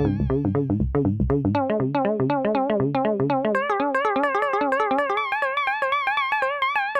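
Retro game-console-style synthesizer music from the UJAM Usynth Pixel plug-in: a fast run of short plucked notes over a bass line, joined about halfway in by a held lead tone with vibrato.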